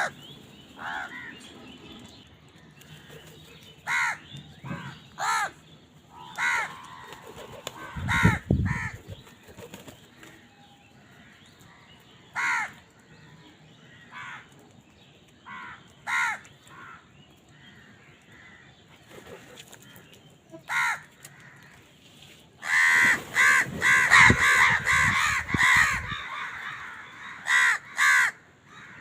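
Crows cawing: single harsh caws every second or two, then a dense run of many overlapping caws lasting about three seconds near the end. A low rumble sits under some of the louder calls.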